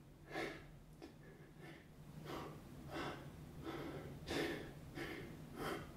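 A man breathing hard from exertion: short, audible breaths, a few faint ones at first, then stronger ones a little under one a second.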